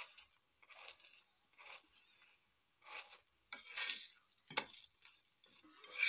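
Steel spatula scraping and tapping against a tawa in a string of irregular strokes, pressing a paratha that is frying in oil, over a faint sizzle.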